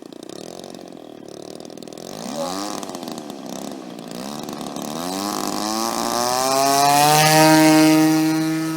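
DLE 20 cc single-cylinder two-stroke petrol engine of a radio-controlled model plane, driving a 15x8 propeller, revved in a few short blips, then climbing steadily in pitch to a high, steady full-throttle note. It is loudest a little after halfway through, then eases off slightly.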